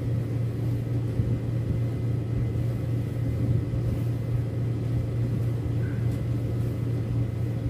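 A steady low mechanical hum that stays unchanged throughout, like a motor running.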